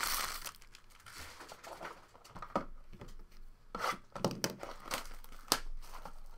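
Plastic wrapping crinkling and tearing as a retail blaster box of trading cards is handled and unwrapped, in a rustle followed by irregular sharp crackles.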